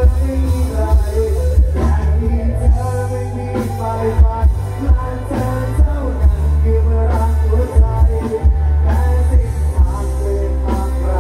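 Live band playing through the loudspeakers of a Thai rot hae mobile stage truck: a man sings into a microphone over keyboard, electric guitar and drums, with a heavy, pounding bass.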